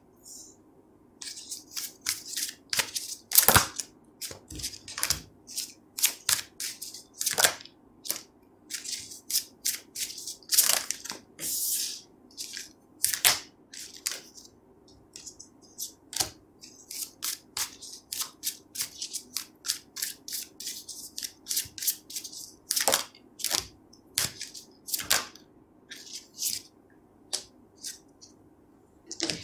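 A deck of tarot cards being shuffled by hand and cards laid down on a wooden desk: a long run of quick, irregular crisp snaps and rustles.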